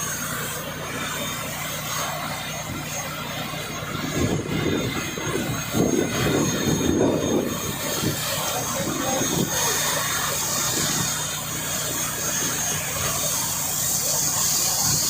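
Water rushing steadily, with a louder stretch about four to eight seconds in.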